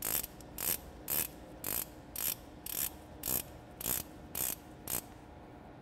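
Locking pawl on a CFM engine's oil scavenge filter head clicking over the ratchet teeth of the filter bowl as the bowl is turned hand-tight, about two clicks a second. The clicking stops about five seconds in.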